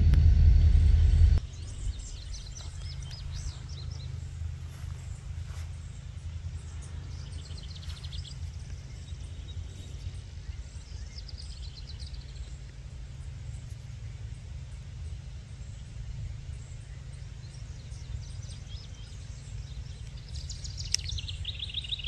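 A loud diesel locomotive rumble cuts off abruptly about a second in. A steady low rumble follows, with birds chirping in short trills every few seconds.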